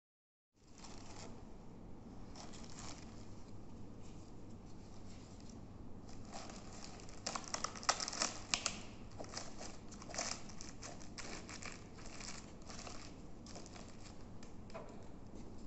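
Clear plastic film crinkling and rustling as gloved hands stretch it tight over a bowl and secure it with an elastic band. It starts about half a second in, and the crackling is loudest about eight seconds in.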